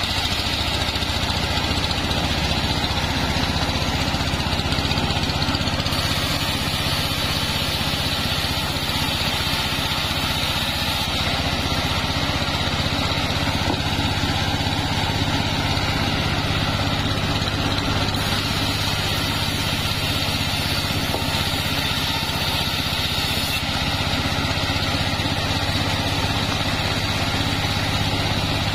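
Engine-driven mobile band sawmill running steadily, its band blade sawing through sengon wood.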